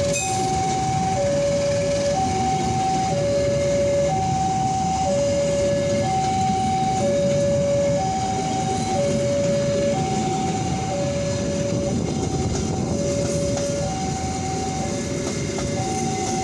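Level-crossing warning alarm sounding its alternating high–low two-tone signal, each tone held about half a second, repeating evenly. Beneath it, the steady rumble of a long passenger train's coaches rolling past on the rails.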